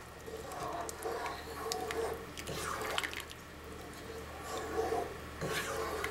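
Wooden spatula stirring lentil soup in a metal pot: the liquid sloshes irregularly, with a few sharp clicks of the spatula against the pot.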